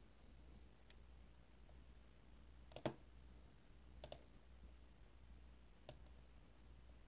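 Near-silent room with a faint low hum, broken by a few sharp clicks while drawing on the computer: a faint one about a second in, the loudest about three seconds in, a quick double click about four seconds in and one more near six seconds.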